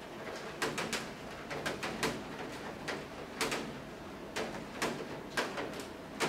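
An aerosol can of lubricant sprayed in short bursts onto an electric fan motor's bearing, with clicks from handling the motor: a string of brief sharp hisses and clicks, irregular, about two a second.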